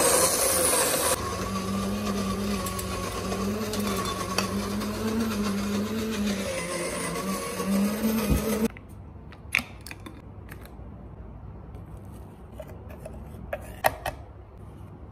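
Electric coffee grinder running with a steady, slightly wavering motor hum as it grinds coffee beans, switched off about nine seconds in; a few light clicks and knocks follow.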